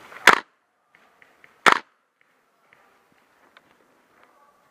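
Airsoft gun firing two single sharp shots about a second and a half apart, close to the microphone.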